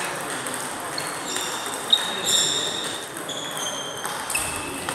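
Plastic table tennis balls ticking off tables and rackets, from several rallies at once. Each hit is a short, high ringing tick, coming at irregular intervals, the sharpest a little under two seconds in.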